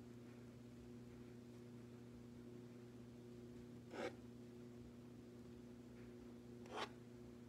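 Two short, faint rustles of a plastic piping bag squeezed as buttercream stars are piped, about four seconds in and again near the end, over a steady low hum.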